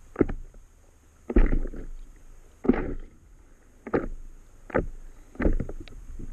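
Choppy sea water slapping and splashing against the hull of an inflatable paddle board, a sharp slap about every second, each with a low thud.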